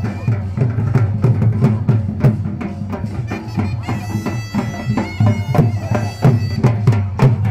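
Live folk music: a loud reed pipe playing held, droning notes over a fast, steady drum beat.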